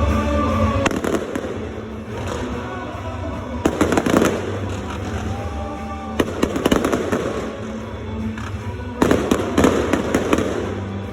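Fireworks going off in three volleys of rapid sharp bangs and crackles, about 4, 6 and 9 seconds in, over steady music.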